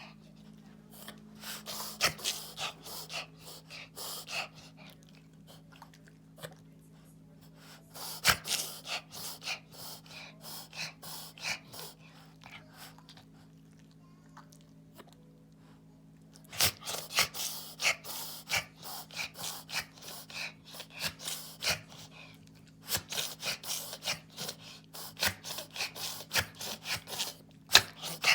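A pet reverse sneezing: bouts of rapid, noisy inhalations through the nose, two or three a second, broken by pauses of a few seconds. A faint steady hum runs underneath.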